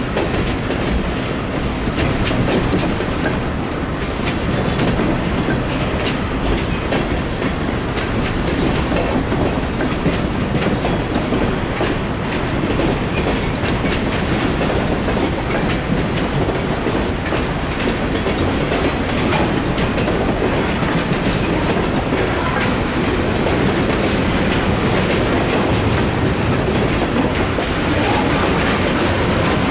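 Freight train of boxcars rolling past at a steady pace: a continuous rumble of steel wheels on rail, with many clicks as the wheels cross rail joints.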